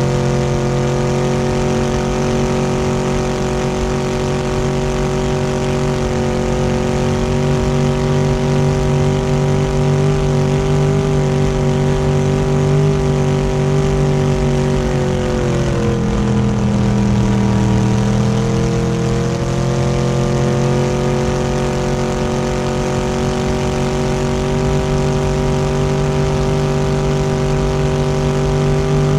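Boat engine running steadily under way, its pitch dipping about halfway through as the throttle eases off, then climbing back to the same steady running speed.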